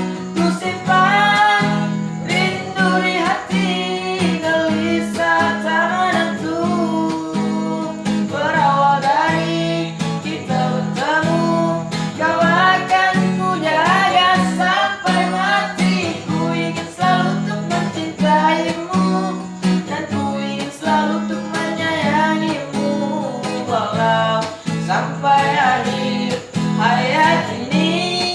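Acoustic guitar strummed to accompany a voice singing a song.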